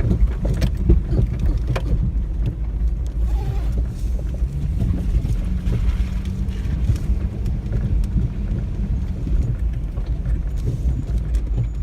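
Off-road vehicle running steadily at low speed, its low engine drone carrying on throughout, with a few sharp knocks and rattles in the first two seconds as it rides over rough trail.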